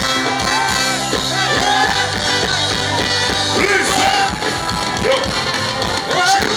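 Music with a steady beat and singing.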